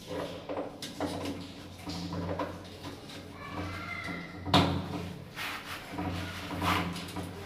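Hands working plastic fittings under a toilet flush tank: a run of short plastic knocks and scrapes, with one sharp knock about four and a half seconds in, over a steady low hum.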